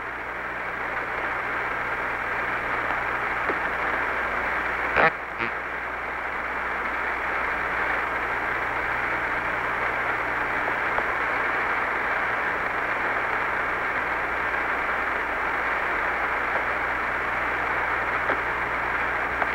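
Steady hiss of an open air-to-ground radio channel from the Apollo 11 mission, band-limited and with a low steady hum beneath it. A short crackle comes about five seconds in.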